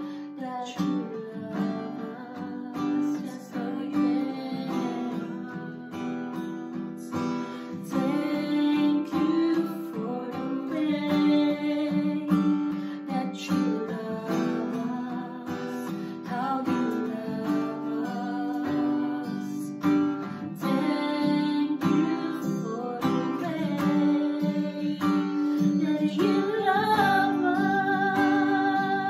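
Acoustic guitar strummed as accompaniment to two women singing a worship song. Near the end a sung note is held with vibrato.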